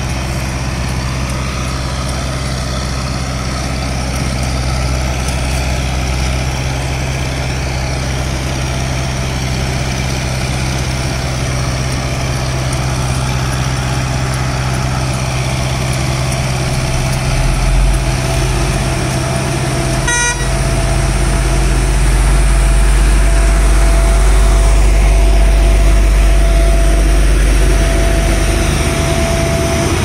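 Heavy diesel road-paving machinery running steadily: an asphalt paver and tipper truck at work, with a heavier low rumble building through the later part. A brief horn toot sounds about two-thirds of the way through, and a steady whine runs on after it.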